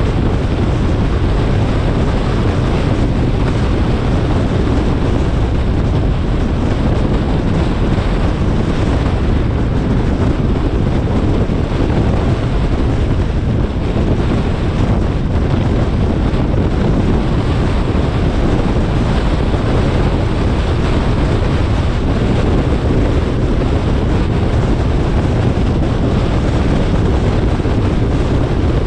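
Wind buffeting an action camera's microphone, mixed with road noise from the car driving: a loud, steady, deep rush that never lets up.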